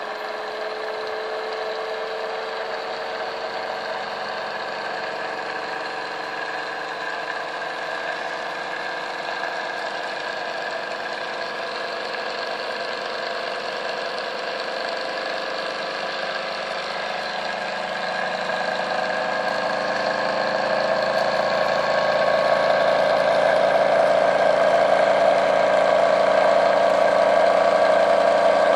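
Bedini-style pulse motor running, its rotor spinning with a steady mechanical hum made up of several held tones. It grows louder a little past the middle and stays louder.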